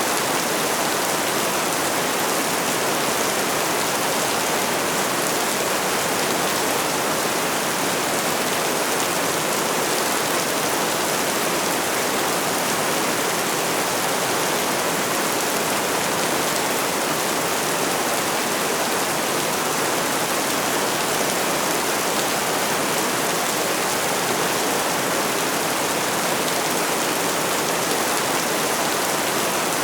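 Steady rain falling, a dense even hiss with no breaks or separate drops standing out.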